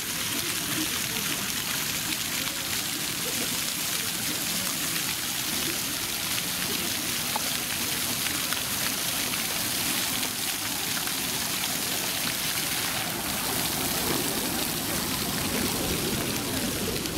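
Ground-level fountain jets spraying water up from floor grates and splashing down onto wet paving stones: a steady rush of falling water.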